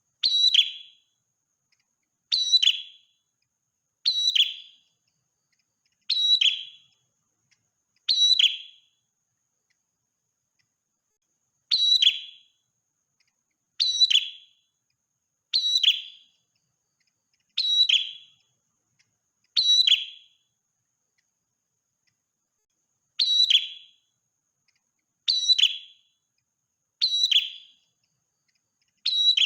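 Prenjak merah, a small Indonesian songbird, giving one short, sharp, high call over and over, about every two seconds, with two longer pauses, and silence in between.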